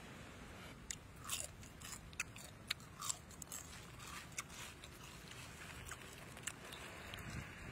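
Roasted tamarind beetles crunching and crackling as they are chewed and scooped up by hand: an irregular scatter of short, crisp clicks.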